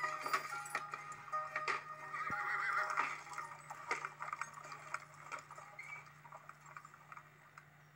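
Animated-film soundtrack playing from a TV: music with a horse whinnying and hooves clip-clopping over a steady low hum, fading out toward the end.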